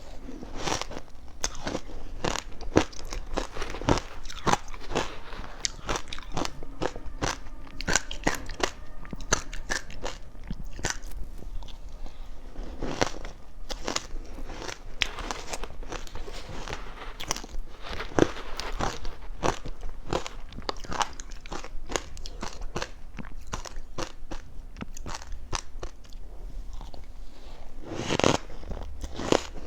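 Ice coated in matcha powder being bitten and chewed close to the microphone: a continuous run of crisp crunches and cracks, with a louder burst of crunching near the end.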